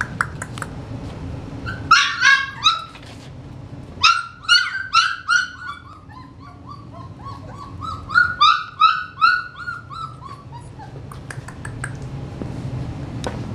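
American Bulldog puppies yelping and whining: runs of short, high cries, several a second, in three main bursts with fainter cries between.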